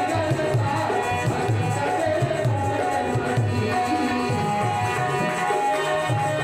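Devotional bhajan music: a hand drum beats a steady rhythm of low strokes under sustained held instrumental notes, with no voice on top.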